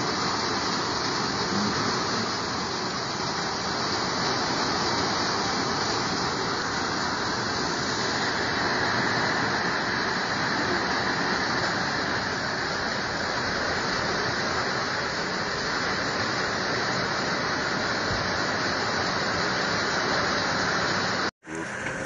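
Heavy rain pouring steadily with strong wind. It cuts off suddenly near the end.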